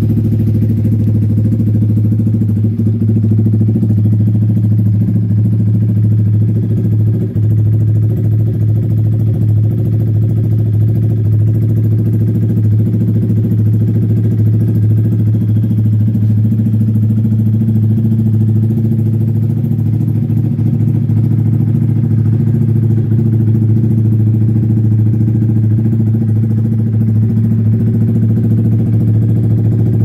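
Yamaha Sniper 155R's single-cylinder four-stroke engine idling steadily through an SC Project carbon slip-on exhaust, an even exhaust note with no revving.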